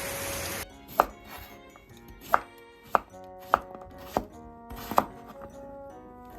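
Kitchen knife chopping on a cutting board: about six sharp, separate cuts at a slow, even pace. Quiet background music runs beneath, and a hiss of rain cuts off in the first second.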